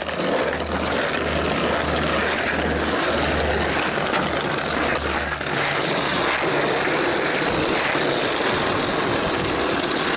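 Skateboard wheels rolling over brick paving, a steady rumbling roar.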